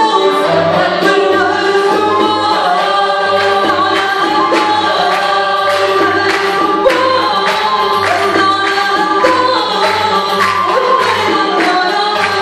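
A live performance of an Arabic song: a women's choir singing with violins, over a low bass line and steady percussion.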